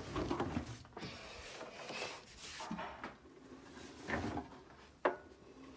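Handling noises: rubbing and light knocks, with a sharp click about five seconds in.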